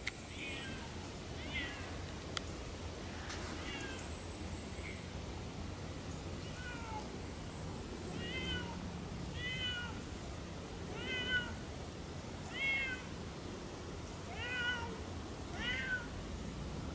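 Siamese cat meowing repeatedly: about ten drawn-out calls, each falling in pitch, coming closer together in the second half.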